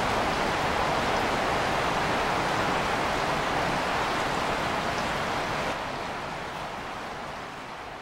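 Steady rush of flowing creek water, an even hiss with no distinct events, fading out over the last couple of seconds.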